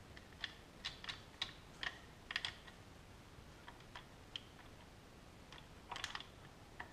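Faint, irregular metallic clicks and clinks as a timing chain on an Audi 5.2 V10 is worked off its camshaft sprocket by hand, in a quick cluster early on and another about six seconds in.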